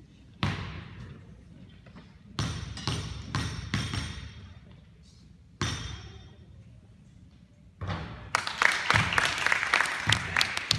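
Basketball bouncing in a gym: single ringing bounces that echo and die away, a few seconds apart, then a dense run of many quick bounces and thuds over the last few seconds.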